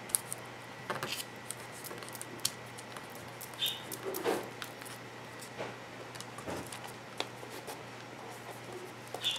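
Tracing paper and tape being handled: scattered soft crinkles, rustles and small clicks as the sheet is pressed flat, taped down at its edge and lifted.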